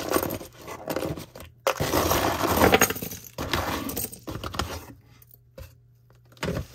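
A pile of mixed jewelry dumped out of a box, many small metal and glass pieces clattering and clinking together, loudest about two to three seconds in and thinning to a few scattered clinks near the end.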